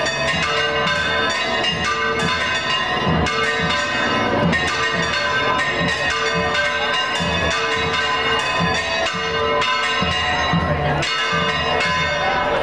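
Church bells pealing rapidly and continuously, many bells of different pitch struck in quick succession, over the chatter of a crowd.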